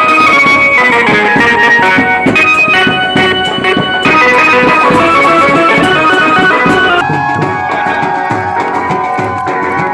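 Loud instrumental background music with sustained melody notes over a steady drum beat. The track changes abruptly several times, as if spliced, and after a cut about seven seconds in a wavering melody line takes over.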